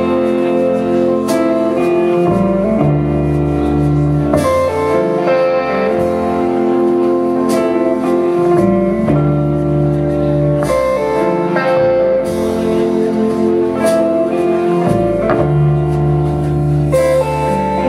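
A band playing an instrumental passage of a slow song: sustained chords over a bass line that changes every second or two, with occasional percussion hits.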